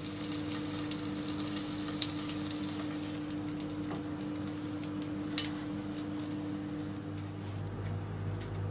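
Chicken tikka skewers sizzling faintly in a frying pan over a steady hum, with a couple of light clicks as skewers are set down on a plate.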